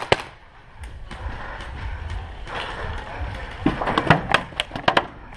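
Paintball markers firing: a quick pair of sharp pops right at the start, then after a lull a rapid string of about ten pops between roughly three and a half and five seconds in.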